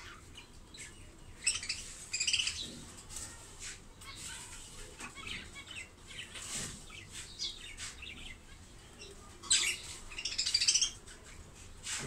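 Budgerigars chattering and chirping, with two loud bursts of rapid high chatter about two seconds in and again near ten seconds, and softer scattered chirps between.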